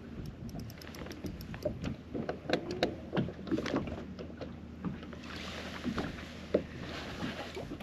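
Spinning reel and rod during the fight with a hooked spotted bass: a quick run of sharp clicks from the reel about a second in, then scattered knocks and taps, and a splashy hiss in the last few seconds as the fish is landed at the boat's side.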